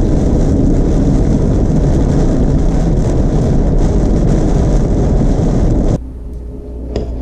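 Steady road and rain noise heard from inside a car driving in heavy rain, cutting off suddenly about six seconds in. A quieter room sound follows, with a single light click about a second later, as a knife and fork cut into a cake on a plate.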